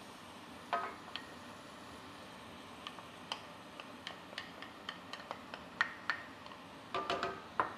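Wooden spoon scraping cream out of a ceramic bowl into a cast-iron skillet: a scattered run of small ticks and taps, with brief ringing clinks of spoon on bowl about a second in and again near the end, over a faint steady hiss.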